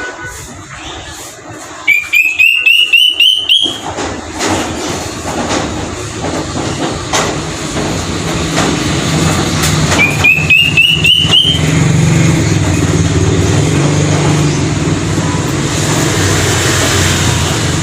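Square-tailed drongo-cuckoo (kedasih hitam) calling twice, each call a quick run of about eight short whistled notes climbing in pitch, the second about eight seconds after the first. A steady low rumble builds underneath from a few seconds in.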